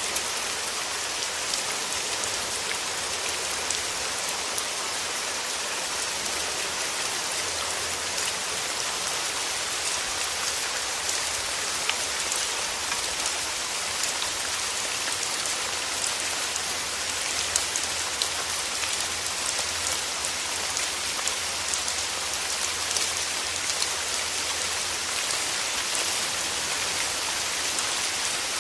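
Steady rain falling on a surface, a dense even hiss with many small drop ticks scattered through it.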